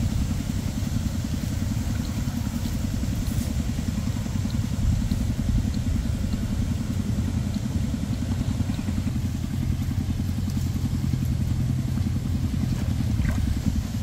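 Steady low drone of an engine running, with a few faint ticks above it.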